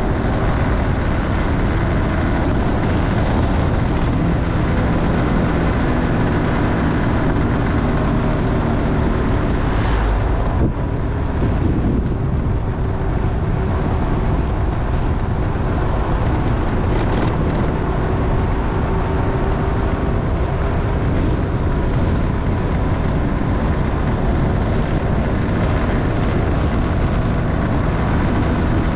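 Motorcycle engine running while riding, its pitch drifting up and down, under heavy wind noise on the microphone. A brief thump and a short dip in level about ten seconds in.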